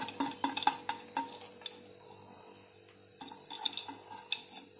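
A spoon and soaked chana dal clinking and scraping against steel as the dal is scraped from a bowl into a steel mixer-grinder jar. A run of light clicks, a quieter stretch in the middle, then more clicks near the end.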